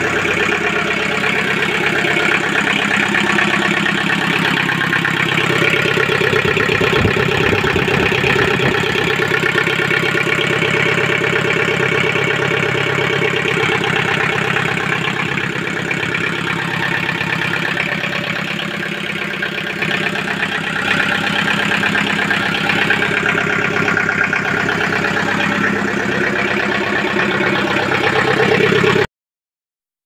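Kubota KH-90 mini backhoe's diesel engine running steadily at idle after its fuel injectors were rebuilt. The sound cuts off suddenly about a second before the end.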